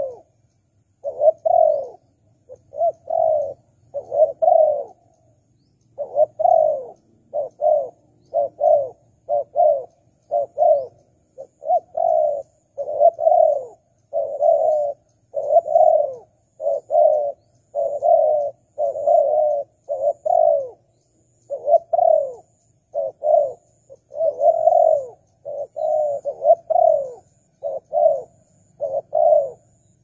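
Spotted dove cooing over and over, a close run of low coos about one and a half a second, some falling in quick pairs or threes.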